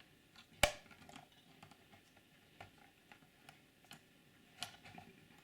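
Light plastic clicks and taps as a flexible spatula is worked along the plastic body shell of a Bachmann Derby Lightweight model, feeling for the clips that hold it to the chassis. One sharp click comes about half a second in and another near the end.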